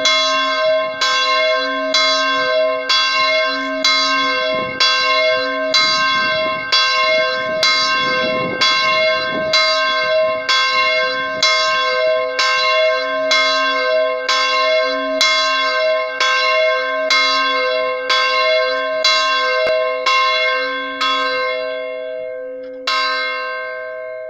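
A single swinging bronze church bell rung for Mass, its clapper striking about once a second with a long ringing hum between strokes. Near the end the strokes thin out as the swing dies down, and the last stroke is left ringing and fading.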